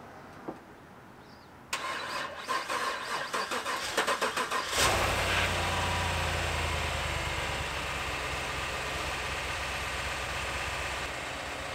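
2019 GMC Yukon Denali's 6.2-litre V8 cranked by its starter for about three seconds, then catching about five seconds in with a brief flare of revs before settling into a steady idle.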